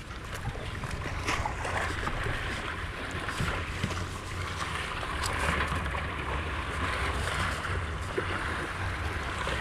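Steady outdoor harbour noise on the water: wind on the microphone and water sounds over a steady low hum, with a few faint knocks.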